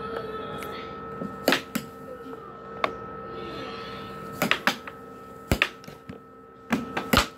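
Air hockey puck clacking against the plastic mallets and the table rails, about ten sharp knocks at uneven intervals, over the steady hum of the table's air blower.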